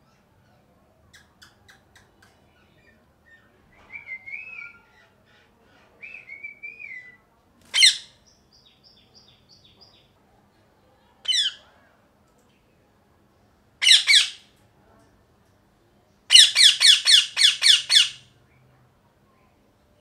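Male Indian ringneck parakeet calling: quieter warbling chatter, then single loud high-pitched squawks, and near the end a rapid run of about nine squawks.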